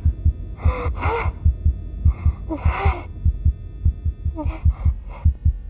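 A fast, even low pulse like a heartbeat in the score, with three short breathy vocal sounds over it: about a second in, near the middle and near the end.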